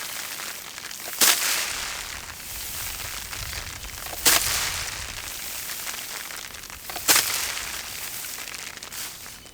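A bundle of dried rice plants beaten against a small table three times, about three seconds apart, each stroke a sharp slap, with straw rustling between strokes: paddy being threshed by hand, the grain knocked loose from the straw.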